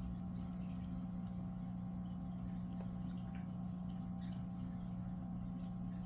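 Steady low hum, with faint scattered soft ticks of a crochet hook working yarn through single crochet stitches.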